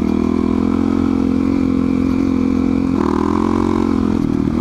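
Dual-sport motorcycle engine running at a steady, moderate speed as the bike rolls over a broken, potholed road, heard close from the rider's helmet camera with wind rumble. About three seconds in, the engine note rises briefly, then settles back.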